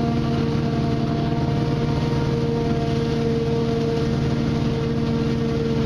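Claas forage chopper running steadily as it cuts sugar cane for silage: a constant engine and machinery drone with a steady whining tone over it.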